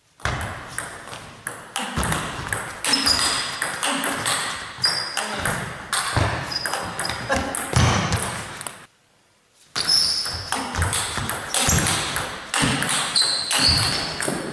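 Fast table tennis rally: the celluloid ball clicks rapidly off the bats and table, with sports shoes squeaking on the hall floor. The clicking stops for about a second past the middle, then a new rally starts.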